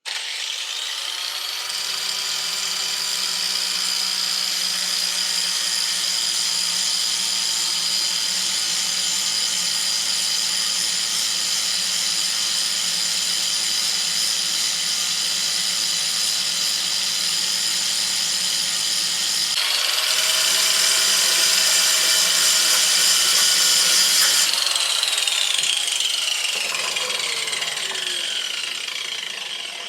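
Angle grinder grinding down the centre of a steel valve-adjusting shim to thin it for valve clearance. The grinder spins up to a steady whine, gets louder and harsher for a few seconds about two-thirds of the way in, then is switched off and winds down with a falling whine.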